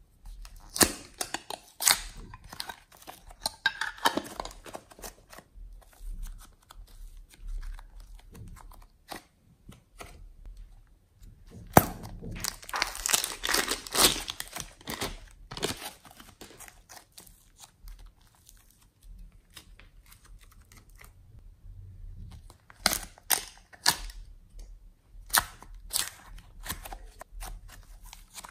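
Hands squishing and stretching slime, making irregular sticky pops and crackles that come in clusters, densest about halfway through and again near the end.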